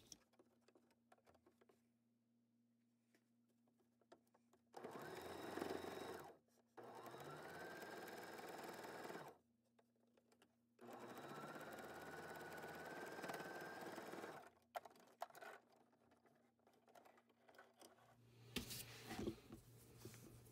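Sewing machine running in three stretches of a few seconds each, with short pauses between, as it top-stitches around a folded fabric hem. Near the end, the fabric is rustled as it is handled.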